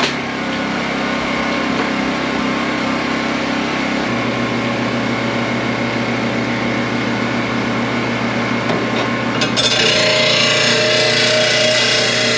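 A Honda EU2200i inverter generator and an electric bench-mounted mower blade grinder run with a steady hum. About ten seconds in, the grinding wheel bites into a steel lawn mower blade and a harsh grinding noise joins in.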